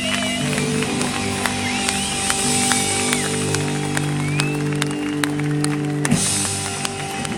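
Live band holding the closing chord of a song, which stops about six seconds in, while the crowd cheers and claps over it.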